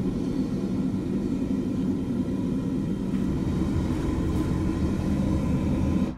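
Burner of a homemade keg foundry furnace running at full heat to melt bronze: a steady low rumble of the flame, with fire blowing out of the lid vent.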